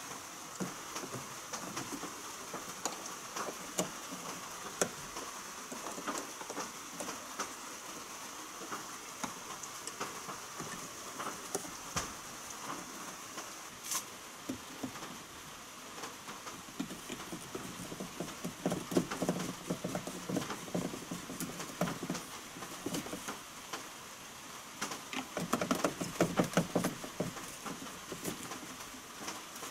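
Handling noise from a plastic-coated steel Irector pipe and its plastic joint being fitted together: scattered clicks and rubbing, with two louder spells of rapid clicking and scraping in the second half, over a faint steady high hiss.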